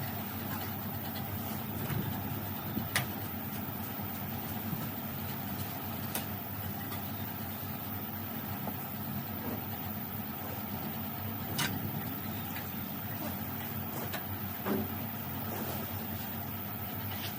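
Steady low mechanical hum, like a motor or engine running, with a few sharp clicks and knocks.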